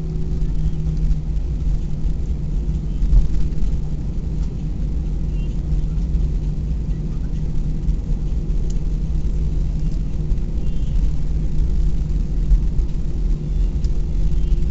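Airbus A320 cabin noise while rolling on the ground after landing: a steady low rumble from the engines and wheels, with a low hum beneath it.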